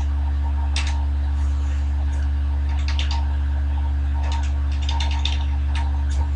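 Typing on a computer keyboard in short runs of keystrokes: a few about a second in, more around three seconds, and a longer run between about four and five and a half seconds. A steady low hum runs underneath.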